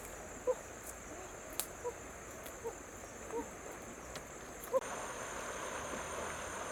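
Insects, crickets among them, keep up a steady high-pitched drone, with a few short soft chirps and faint clicks. A soft hissing noise joins about five seconds in.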